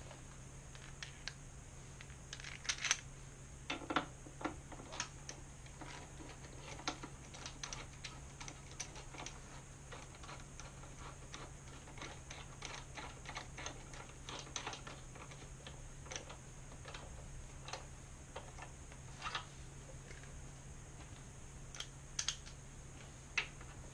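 Irregular small clicks and taps of hand tools and metal parts being handled while fitting motorcycle frame sliders, some coming in quick clusters, over a steady low hum.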